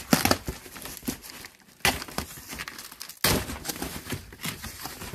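A cardboard box being opened and its contents pulled out: irregular rustling and crinkling of cardboard and packaging, with sharper scraping knocks about two seconds in and again just after three seconds.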